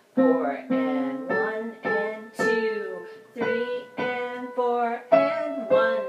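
Piano playing a choir's soprano 1 part: about ten notes struck roughly every half second, each dying away, with lower notes sounding beneath the melody.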